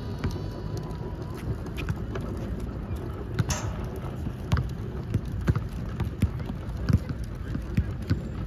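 Dull thuds of a flat, underinflated basketball bouncing on a hard outdoor court, mixed with players' footsteps. About three and a half seconds in, a sharper ringing hit comes as a shot meets the hoop.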